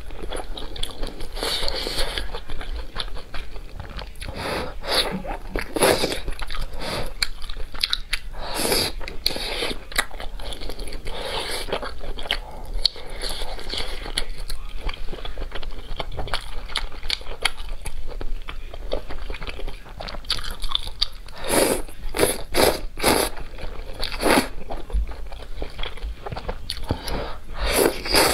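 A person eating close to the microphone: chewing and biting spicy noodles and crab sticks, with noodles slurped in. It comes as an irregular string of short wet mouth sounds.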